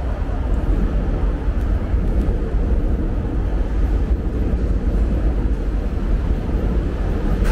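Steady city street noise dominated by a deep, continuous rumble, like traffic.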